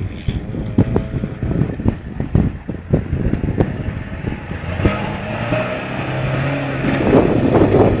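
Off-road 4x4 pickup truck driving over loose dirt and starting up a steep gravel bank, its engine running with scattered knocks in the first half. The engine note grows steadier and louder over the last few seconds as it pulls up the slope.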